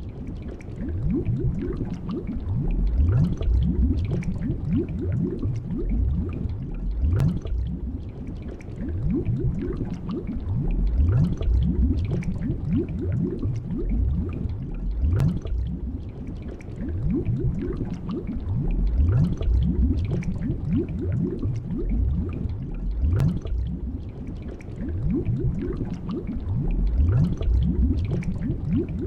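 Underwater water sounds: low bubbling and gurgling that swells and eases about every four seconds, with a sharp click about every eight seconds.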